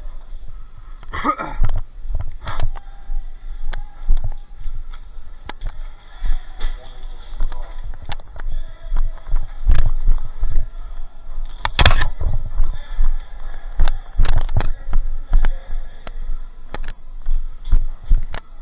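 Irregular knocks, thumps and clicks, with one sharp loud crack about twelve seconds in.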